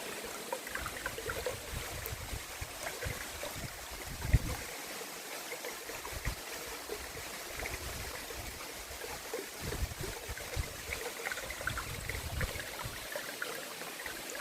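Waterfall and its stream splashing steadily, with a brief low thump about four seconds in.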